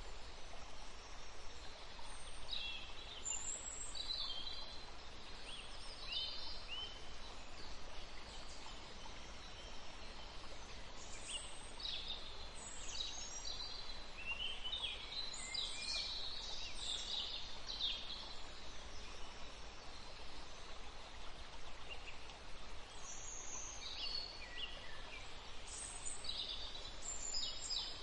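Small songbirds chirping and twittering, with quick high notes coming in three spells (early, in the middle and near the end), over a steady even background hiss.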